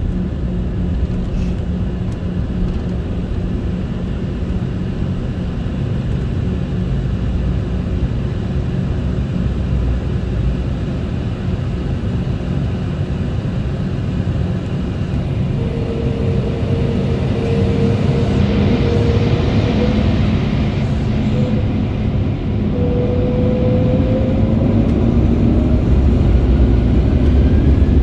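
Cabin noise of an Embraer E190 on the taxiway: a steady low rumble from its GE CF34 turbofans. From about halfway in, the engine whine rises in pitch and the rumble grows louder as the engines spool up.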